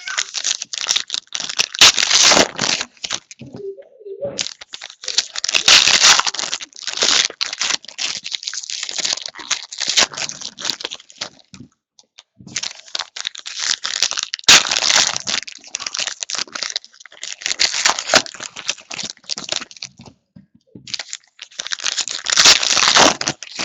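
Plastic wrappers of Hoops basketball trading card packs being torn open and crinkled by hand, in a series of loud crinkling bursts with short pauses between them.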